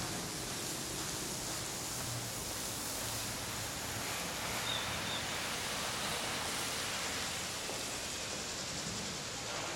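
Steady, even outdoor hiss with no distinct events, and a brief faint high chirp about five seconds in.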